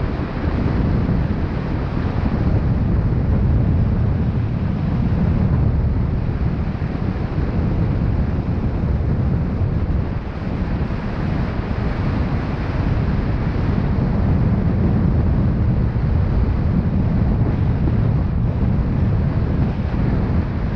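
Wind buffeting the microphone: a steady low rumble that swells and eases.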